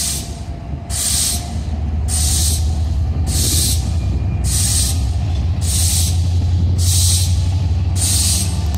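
Diesel locomotives running with a steady low engine rumble, overlaid by a short hiss that repeats evenly about once a second.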